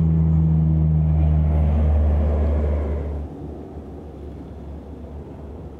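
Canadair amphibious air tanker's twin turboprop engines droning loudly as it passes low over the water; about three seconds in the sound drops off abruptly to a fainter drone as the plane climbs away.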